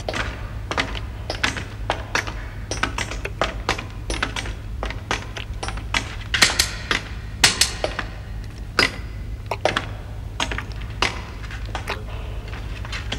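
Science-fiction soundtrack effects: irregular clicks and knocks, several a second with the loudest near the middle, over a low steady hum.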